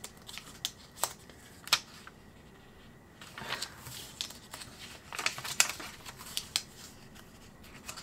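Paper pages of a small hardcover Moleskine sketchbook being turned by hand: a few sharp flicks in the first two seconds, a short lull, then rustling and a quicker run of page flicks from about three and a half seconds in.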